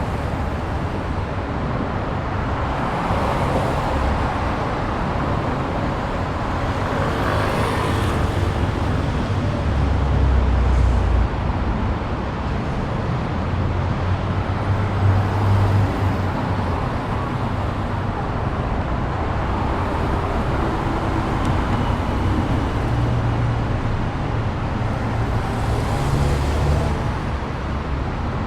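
Steady street traffic: a continuous road-noise rumble with several vehicles passing one after another, each swelling and fading.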